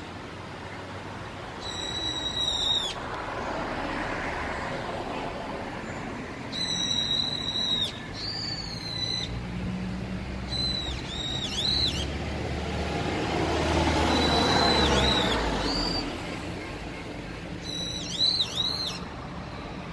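Adult bird calling loudly from the overhead wires, a high, sharply arched call repeated in phrases every few seconds: the parent's alarm calls over its grounded fledgling.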